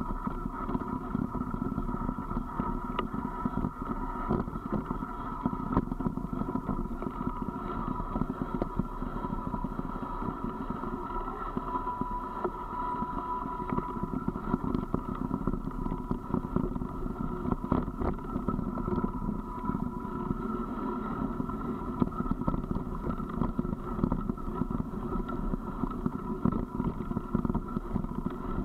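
Steady running noise of a vehicle descending a rough gravel track, with a constant hum and frequent small knocks and rattles from the bumpy surface.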